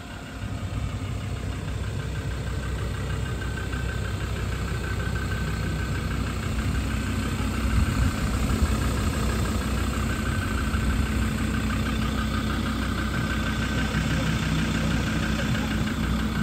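Ford Ranger Wildtrak pickup's diesel engine idling steadily.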